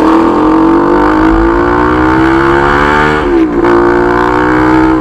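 Bajaj Pulsar NS200 motorcycle engine running loud through an aftermarket SC Project full-system exhaust under acceleration, its pitch climbing slowly. About three seconds in the pitch dips briefly, then comes back and holds steady.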